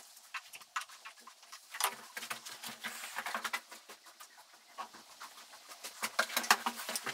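Irregular clicks, taps and knocks of a wooden window sash and its frame being handled and worked loose, busiest from about two seconds in and again near the end.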